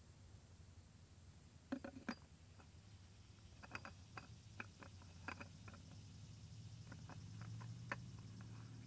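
Faint, scattered clicks and taps from gloved hands handling a new metal spin-on oil filter, being fitted under the truck. A cluster of sharper clicks comes a little under two seconds in. A steady low hum runs underneath.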